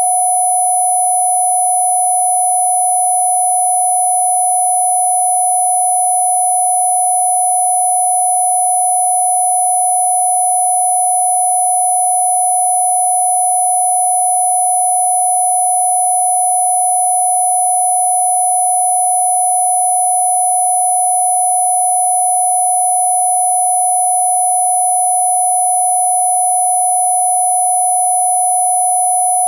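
A steady, unchanging synthesized sine tone at a mid pitch, with several fainter, higher steady tones layered above it: a Rife-style frequency-therapy tone.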